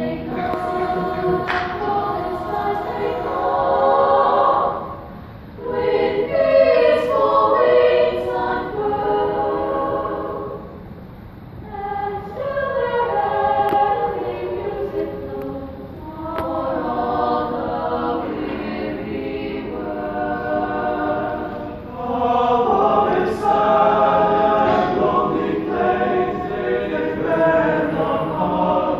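Mixed choir of male and female voices singing in harmony, the phrases swelling and easing, with brief breaks between phrases about five and eleven seconds in.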